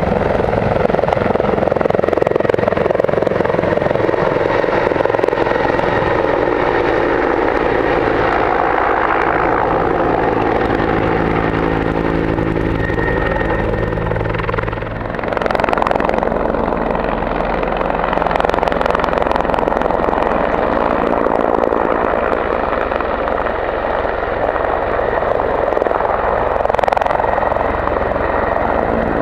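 A four-bladed firefighting helicopter's rotor and turbine noise, loud and continuous: the helicopter flies overhead at first, then after a brief dip about halfway through it hovers low over water.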